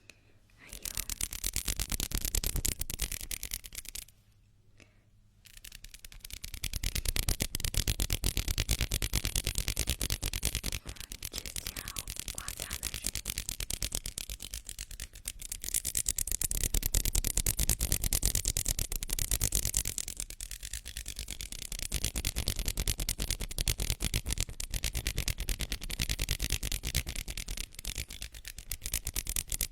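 Hands rubbing together close to the microphone, a fast, dense, crackly friction sound, with a brief pause about four seconds in.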